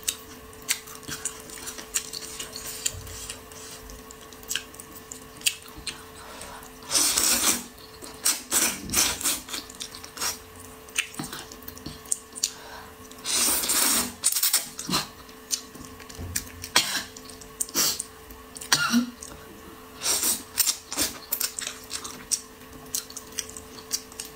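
Close-miked eating of noodles: two long slurps, one about a third of the way in and one just past halfway, among many wet mouth clicks and chewing sounds and light clicks of wooden chopsticks against a ceramic bowl. A faint steady hum sits underneath.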